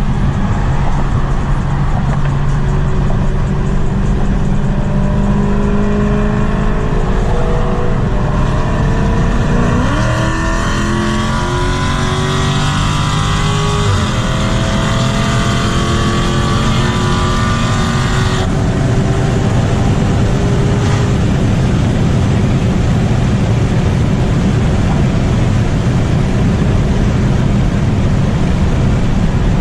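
Loud modified car exhaust, engines running with a steady rumble and revving up for a few seconds about a third of the way in.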